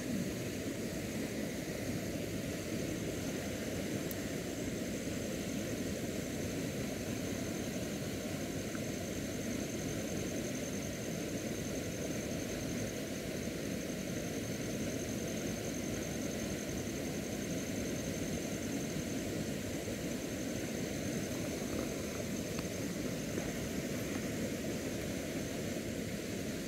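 Steady, even rushing of a swollen, flooded river, with a thin, constant high-pitched whine running over it.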